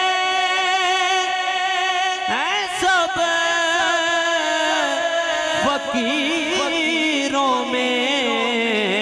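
A man sings an Islamic devotional song through a microphone without words, in long drawn-out notes. One note is held for about two seconds, then the voice swoops up and sings held notes that slide slowly lower.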